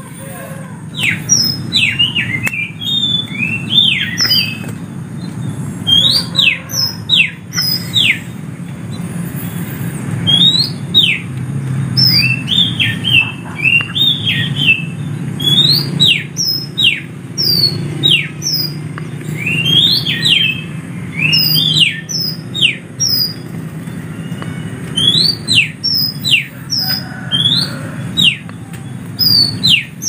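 Songbird singing loudly close by: short whistled phrases of sharply rising and falling notes, one phrase after another with brief pauses.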